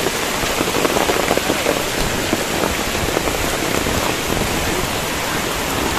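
Heavy rain falling steadily: a dense, even hiss of drops.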